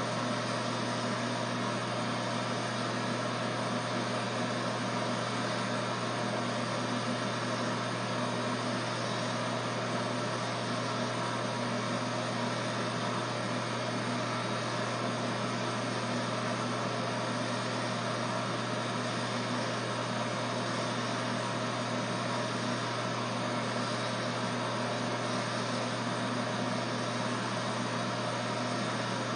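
Corded electric hair clippers running with a steady buzz as they cut hair at the back of the head.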